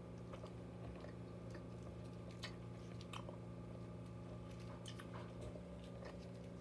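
Candy being chewed close to the microphone: scattered small clicks and crunches over a steady low hum.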